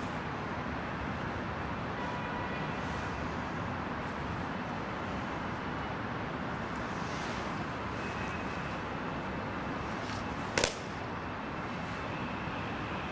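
Steady city traffic noise, with a single sharp click about ten and a half seconds in.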